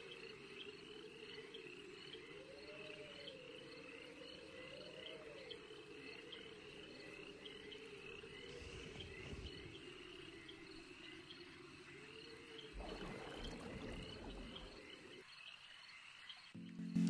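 Faint night ambience of frogs and chirping insects: a low wavering trill with a few rising-and-falling calls, under a high chirp repeating about twice a second. About thirteen seconds in, a louder noisy stretch lasts some two seconds; then the ambience cuts out and music starts just before the end.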